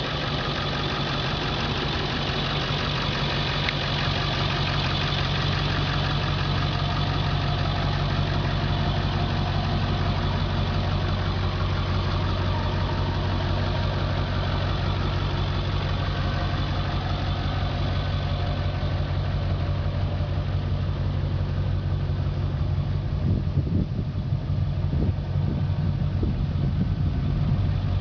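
International 4700 medium-duty wrecker's engine idling steadily, with a few brief knocks near the end.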